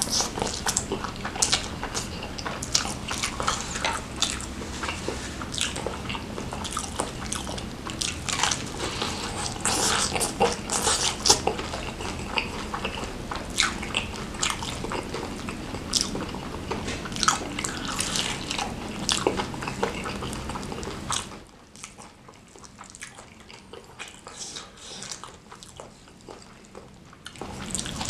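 Close-up eating sounds of a person chewing spicy noodles and biting into fried chicken, with many short wet mouth clicks and crackles. The sounds grow much quieter for several seconds near the end.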